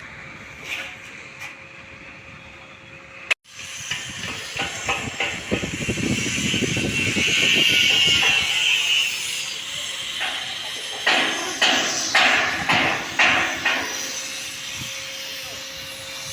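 Metalwork on a steel-pipe shed frame: a hissing noise swells and fades, then about half a dozen sharp knocks come in quick succession near the end.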